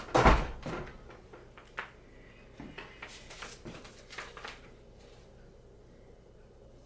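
A loud knock or thump just after the start, then a few sharp clicks and rustling handling noises that die away about halfway through.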